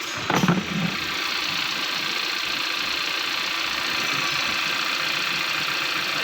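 2019 Kia Sportage engine idling steadily, running again now that its loose starter motor relay has been reseated. A brief loud clatter comes about half a second in.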